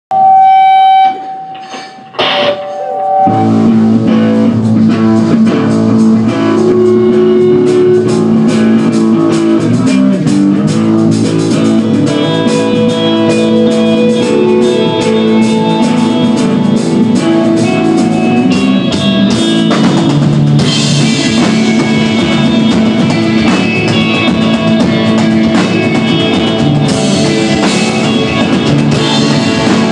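Rock band playing live: electric guitar, bass guitar and drum kit in an instrumental desert-rock piece. It opens with a loud held note and a short gap, and the full band comes in together about three seconds in, then plays on steadily.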